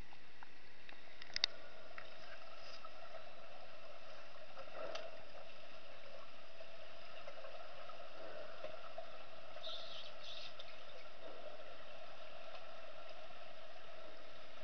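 Muffled underwater ambience of a swimming pool heard through a submerged camera: a steady hum with faint bubbling and gurgling. A sharp click about a second and a half in.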